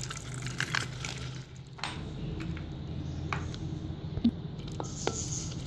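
Soaked urad dal being scraped with a steel spoon off a ceramic plate into a glass blender jar: the wet lentils slide and drop in, with several light clinks of the spoon against plate and jar.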